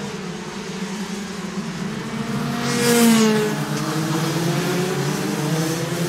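Two-stroke Rotax 125 kart engines racing at high revs, several engines at once. About halfway through one kart passes close by, the loudest moment, its pitch dropping as it goes past.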